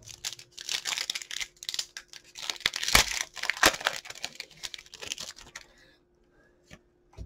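Foil wrapper of a Pokémon TCG booster pack crinkling as it is torn open and the cards are worked out, with one sharper snap about three seconds in. The crinkling stops about six seconds in.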